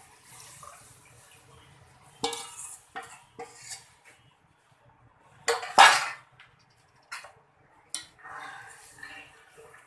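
A metal spoon clinking and scraping against a cooking pot in a series of separate knocks, with the loudest clatter about six seconds in, as the curd and gram-flour mixture is stirred into the masala.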